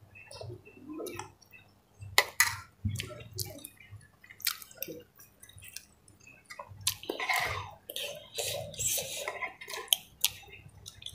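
Close-up eating sounds: wet slurping of instant noodles in broth and chewing, with several sharp clicks spread through.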